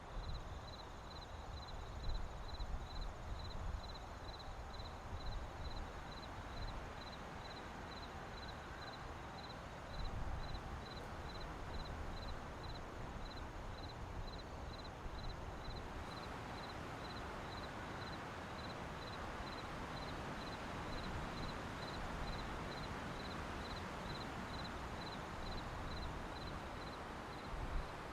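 Added night-forest ambience: a steady hiss of background noise with a short, high chirp repeating evenly about one and a half times a second. The background grows a little fuller about halfway through.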